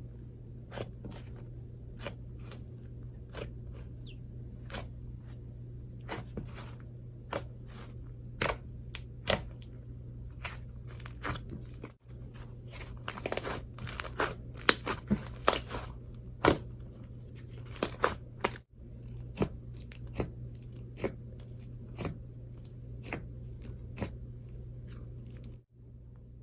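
Soft buttercream-textured slime being squished, poked and stretched by hand, giving many irregular small sticky clicks and pops over a low steady hum.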